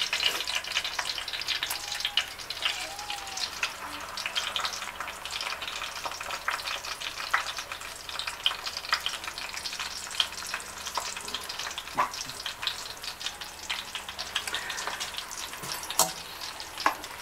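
Rolled flour-tortilla chimichangas frying in hot oil in a pan: a steady crackling sizzle, with a couple of sharp clicks in the second half.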